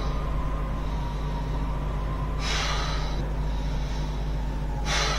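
A man gasping for breath in laboured, noisy inhalations, twice, about two and a half seconds apart, over a steady low hum: the struggling breathing of a patient in respiratory distress.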